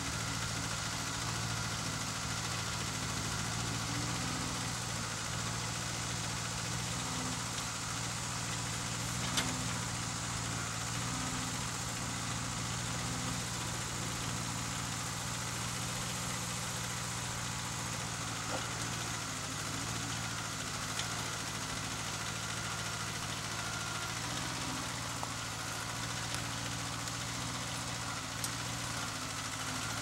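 Garden tractor engine running steadily while it powers a homemade hydraulic backhoe through its digging cycle, with a few faint clicks, the clearest about nine seconds in.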